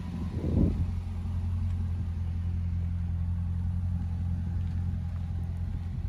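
2005 Chevrolet Corvette's 6.0-litre LS2 V8 idling steadily, with a brief louder burst about half a second in.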